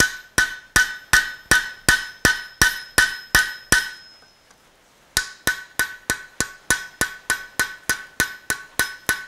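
Hand hammer peening a hot iron rivet over on an anvil: steady light blows, about three a second, each leaving the anvil ringing. The blows stop for about a second near the middle while the piece is turned over, then resume a little faster.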